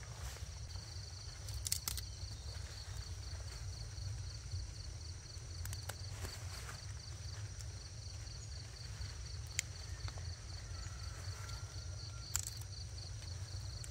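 Rural outdoor ambience: an insect calling in a steady high pulsing chirp, about five pulses a second, over a steady low rumble, with a few scattered sharp clicks.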